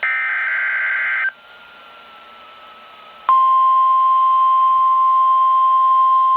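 A NOAA Weather Radio receiver's speaker sounding an Emergency Alert System alert. A harsh burst of SAME header data lasts just over a second. After a pause of about two seconds, the steady 1050 Hz warning alarm tone starts about three seconds in and holds. This sequence marks the start of a new warning broadcast.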